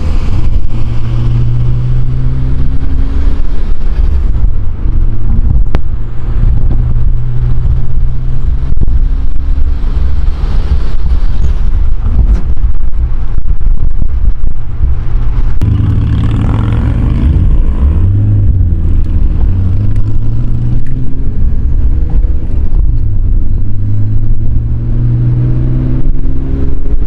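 Nissan Skyline R33 GTS-T's turbocharged RB25DET straight-six, heard from inside the cabin, accelerating and changing gear: the engine pitch climbs and drops back at each shift, over and over. About halfway through it gets suddenly louder and fuller.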